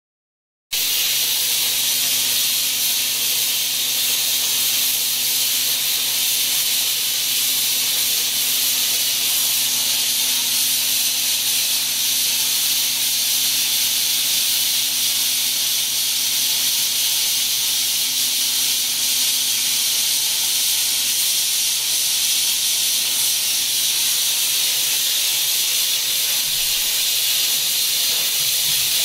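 CNC plasma cutter torch cutting 5 mm steel plate: a loud, steady hiss from the plasma arc and air jet, with a low steady hum underneath.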